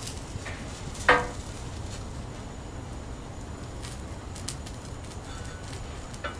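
A single ringing metallic clink about a second in, a steel spatula striking the flat steel top of a Blackstone griddle, over a steady low background noise.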